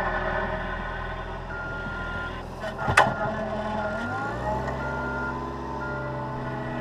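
Cat 236B skid steer's diesel engine running with its backup alarm beeping, and a sharp metal clank about three seconds in, the loudest sound, while it works snow. The engine speeds up about four seconds in.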